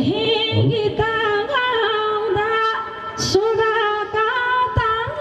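A woman singing a Nepali folk song in long, wavering held notes over a few low hand-drum strokes.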